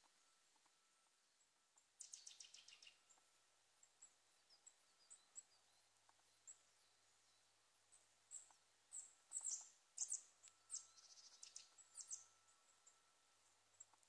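High, thin calls of small woodland birds in a mixed flock: a fast trill about two seconds in, scattered single chips, then a busier run of calls with another short trill near the end.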